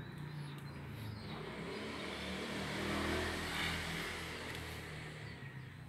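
A motor vehicle passing by, its engine noise swelling to a peak about halfway through and then fading.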